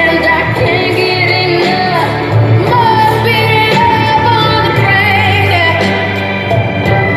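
Pop song with a woman singing over a steady bass line, her held notes wavering with vibrato.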